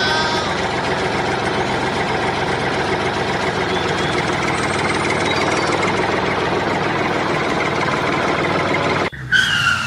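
Tractor engine running steadily at an even pace. Near the end it stops suddenly and gives way to a short high whistle-like tone.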